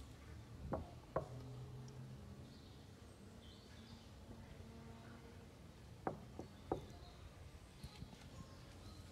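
Quiet outdoor ambience with a few short, sharp knocks, two about a second in and three more about six seconds in, and faint bird chirps.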